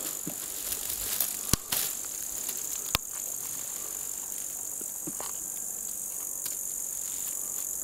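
Steady high-pitched chirring of field insects in the summer grass, with two sharp clicks about a second and a half and three seconds in.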